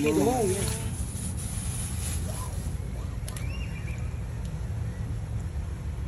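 A steady low rumble with a few light clicks and small splashes as pieces of raw snake meat are dropped into a pan of hot water. A voice is heard briefly at the very start.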